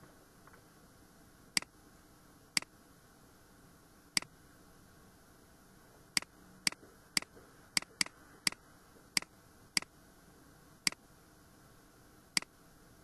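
Computer mouse button clicking about thirteen times at uneven intervals, with a quicker run of clicks in the middle, over a faint steady hiss.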